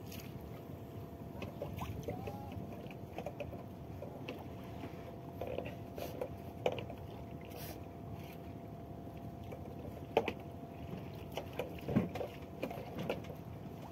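Ambience on board a small fishing boat at sea: a steady low rumble of wind and water with a faint steady hum, broken by scattered knocks and clicks from gear on the boat, the loudest about ten and twelve seconds in.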